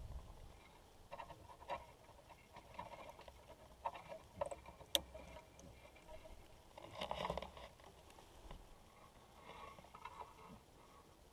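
Faint rustling with scattered light taps and clicks close to the camera, a sharp click about five seconds in and a brief louder rustle around seven seconds.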